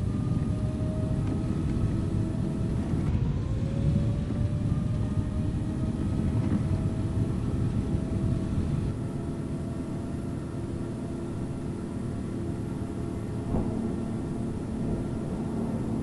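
Airbus A330-300 jet engines at takeoff power: a loud, dense rumble with whining tones that rise slowly in pitch. The level drops a little about nine seconds in.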